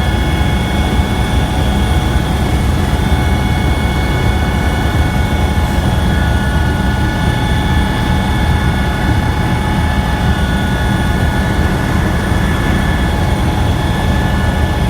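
Helicopter in flight heard from the cabin: a loud, steady drone of rotor and engine, with a few steady high whining tones from the turbine on top.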